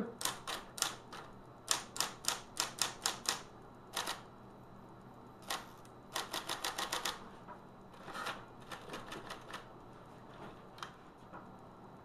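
Smith Corona electric typewriter typing: sharp key strikes in short irregular bursts separated by pauses, with a quick run of strikes about six seconds in, over the faint steady hum of its continuously running motor.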